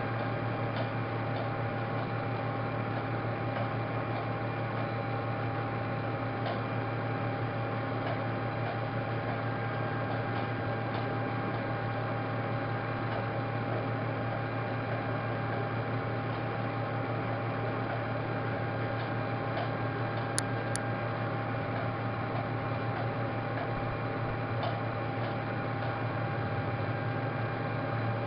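Steady low electrical hum with a constant hiss and a few faint steady tones, the background noise of the recording line. A few faint clicks, with a sharper pair of clicks about twenty seconds in.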